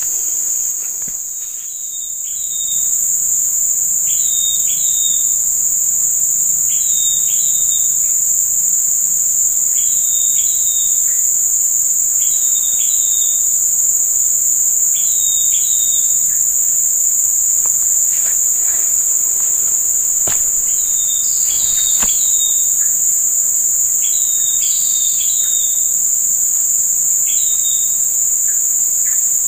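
A steady, high-pitched insect chorus drones on without a break, with a short double chirp repeating every two to three seconds.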